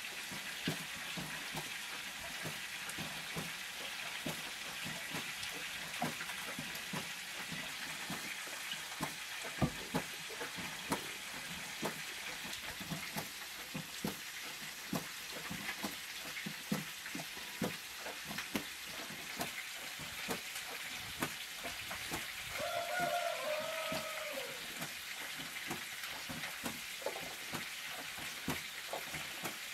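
Chicken pieces frying in a pan over an open wood fire: a steady sizzle with frequent crackles and pops.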